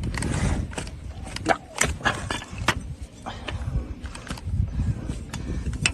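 Trimming tools cutting into a donkey's overgrown, hard hoof horn: a run of irregular sharp cracks and scrapes, several a second, over a low rumble.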